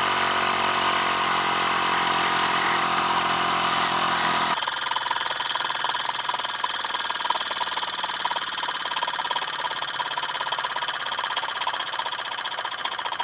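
A toy steam engine drives a small belt-driven grinding wheel with a steel rod held against it to throw sparks, giving a steady whine with hiss. About four and a half seconds in the sound cuts to a toy steam engine running at high speed, a rapid, even beat over steam hiss.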